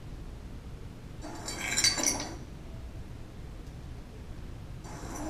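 A glass jar being handled, clinking and rattling briefly about a second and a half in, with a fainter clink near the end, over a low steady hum.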